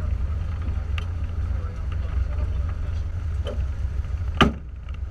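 Cessna 150's four-cylinder engine idling, a steady low drone heard from inside the cabin. A single sharp knock about four and a half seconds in.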